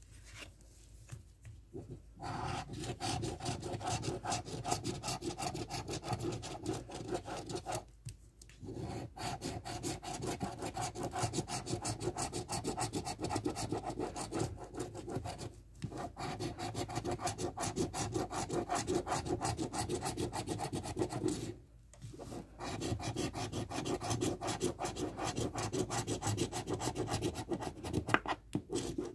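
Scratch-off lottery ticket being scratched with a round scratcher disc: rapid back-and-forth scraping of the coating. It starts about two seconds in and comes in four long runs broken by three short pauses.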